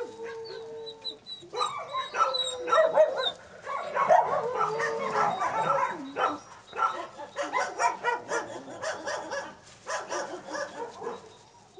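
Wolves howling, yipping and whining together. A held howl opens, then a tangle of short gliding yips and whines, and from about halfway on quick repeated yaps, several a second.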